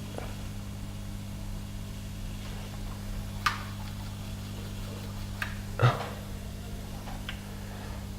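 Steady low electrical hum of workbench equipment, with a few sharp light clicks of small tools at the work, the loudest about six seconds in.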